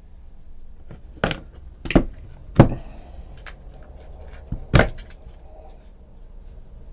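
Four sharp knocks of hard objects on a hard surface, irregularly spaced over about four seconds, with a weaker knock just before the last.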